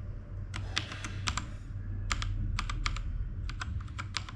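Ant Esports MK4500 Pro TKL mechanical keyboard being clicked, a string of separate, irregularly spaced key presses as the lighting modes are stepped through.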